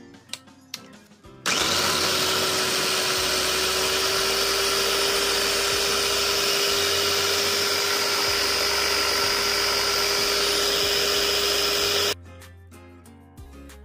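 Food processor motor spinning up and running at a steady whine for about ten seconds as its blade blends onion, chillies and red pepper into a thick paste with no water added, then stopping suddenly. Background music with a repeating bass plays throughout.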